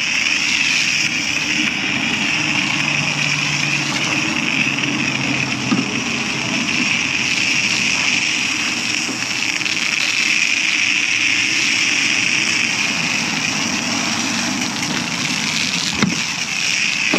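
Self-serve car wash foam wand spraying foam onto a truck: a steady hiss over a low, even machine hum.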